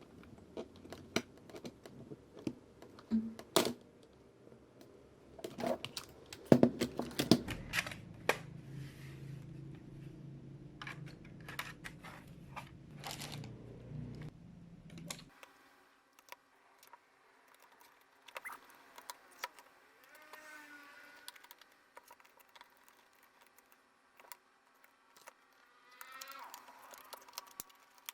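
Irregular plastic clicks, taps and knocks from hands working on an Acer Aspire E1-472G laptop's keyboard and casing. They come thick and fast for about half the time over a low hum, then the hum cuts off suddenly and only occasional faint clicks remain.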